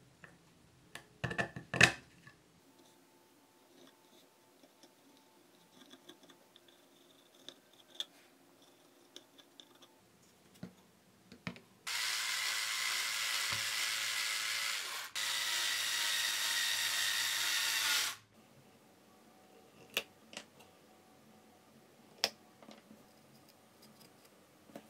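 Cordless electric screwdriver running in two steady bursts of about three seconds each, driving small M2.2x16 self-tapping screws into a 3D-printed plastic base. A few sharp clicks come about two seconds in, as a plastic connector housing is pressed into place, and a few light clicks follow near the end.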